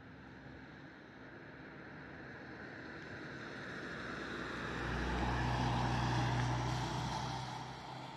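A motor vehicle passing by: a low engine hum and rushing noise that grows louder, peaks about five to seven seconds in, then fades away.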